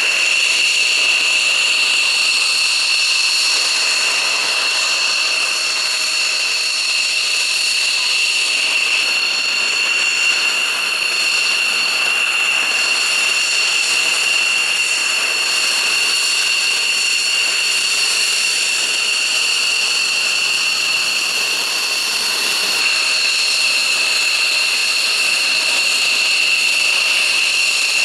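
Fighter jet engines running at ground idle on the flight line: a steady high-pitched whine over a constant rushing noise.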